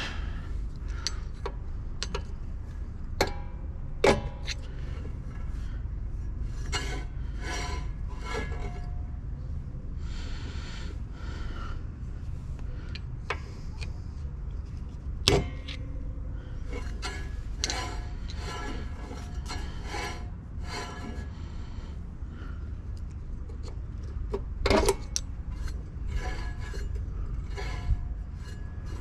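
Front brake drum of a 1963 VW Beetle being turned by hand, scraping in repeated short strokes as the new brake shoes rub inside it, with a few sharp clicks and knocks. The shoes are being adjusted and are set too tight, so they drag.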